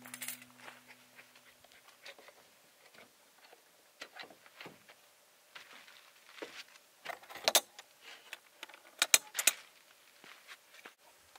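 Keys jangling and metal latch clicks at the rear door of a Four Wheel pop-up truck camper as it is unlocked and opened: scattered light rattles, with the sharpest clicks about seven and a half seconds in and a pair near nine seconds.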